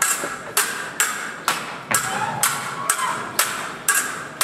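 Stage-combat swords clashing blade on blade, a steady run of sharp strikes about two a second, each ringing briefly.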